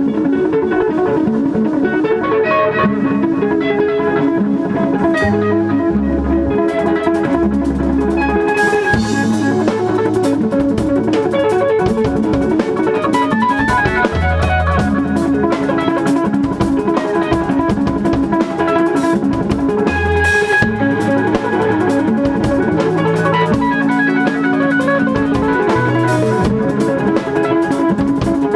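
Instrumental rock band playing live: interlocking clean electric guitar lines over a drum kit, with the cymbals and drums coming in about six seconds in.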